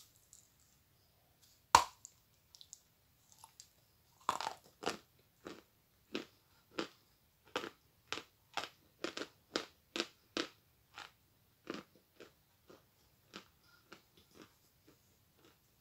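A sharp bite snapping off a piece of Akbulak eating chalk, then steady crunching as the dry chalk is chewed, about two crunches a second, growing fainter near the end.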